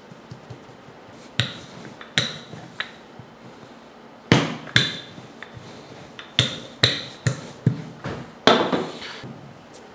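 About ten sharp knocks at irregular intervals on a hard countertop as naan dough is pressed, flipped and slapped down, then rolled out with a wooden rolling pin.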